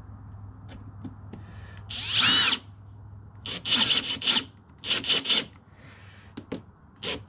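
Cordless drill driving short screws through a metal picture hanger into a plastic cooler lid. There is one longer run with a rising motor whine about two seconds in, then groups of short trigger bursts as the screws are seated.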